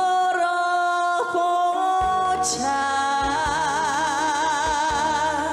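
A singer holding long wordless notes over a backing track, the last note held with a wide vibrato; bass and drums come in about two seconds in.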